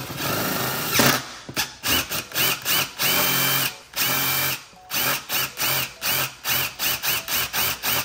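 Cordless impact driver fitted with a drill bit, drilling out a plastic rivet. It runs for about a second at first, then in many short trigger pulses with a couple of longer runs, each with a whine that rises as the motor spins up and falls as it stops.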